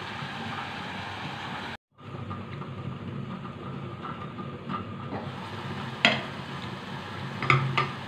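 Chopped onions sizzling in a stainless steel pot on a gas stove. The sound cuts out briefly about two seconds in. A sharp clink comes about six seconds in and two more near the end as the glass lid knocks on the pot rim and is lifted off.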